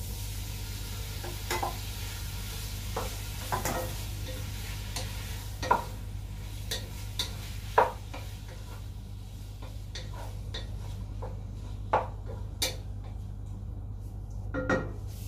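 Wooden spatula stirring and scraping in a frying pan, with irregular sharp knocks against the pan over sizzling food. The sizzle dims about halfway through; a steady low hum runs underneath.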